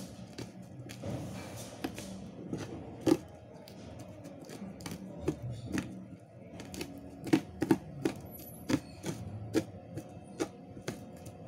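A small knife slicing small red chillies by hand, giving irregular sharp clicks and taps, several a second at times, over faint background music.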